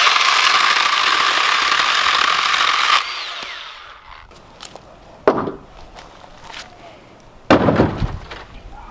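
Milwaukee M12 Fuel Hatchet 6-inch cordless pruning chainsaw cutting through a thick log for about three seconds, then the chain winding down once the trigger is released. Two thumps follow, the louder one about a second before the end.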